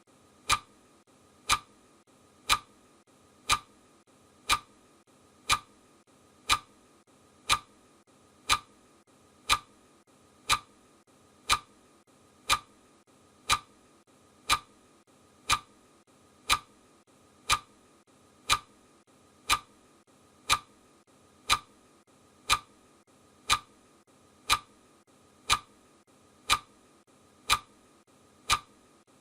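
Clock ticking sound effect: one sharp, even tick every second, steady throughout.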